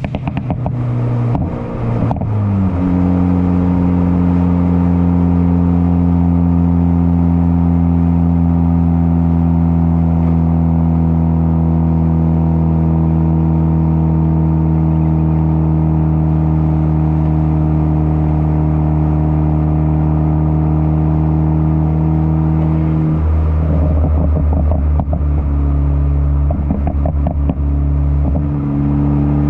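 Ford Focus ST exhaust through a catless downpipe and muffler-delete catback. It opens with a burst of crackles and pops from the crackle tune as the revs fall, then holds a steady engine note for about twenty seconds. Near the end the note drops and another run of crackles and pops breaks out before the steady note returns.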